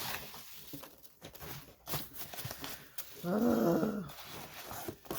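A domestic cat meows once, one drawn-out call that rises and then falls in pitch, about three seconds in. Light clicks and rustles of packaging being handled come before it.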